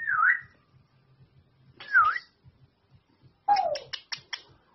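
Pet parrot whistling two swooping notes about two seconds apart, each dipping down and sliding back up. Then comes a lower call that falls in pitch, mixed with a quick run of sharp clicks.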